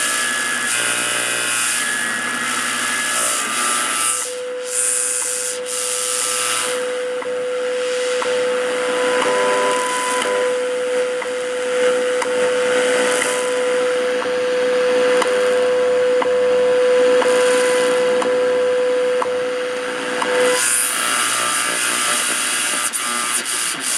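An RCA AR-77 shortwave receiver being tuned: hiss and static through its speaker. About four seconds in, a steady whistle-like tone comes up out of the noise, with faint ticks about once a second. The tone cuts off a few seconds before the end, leaving static.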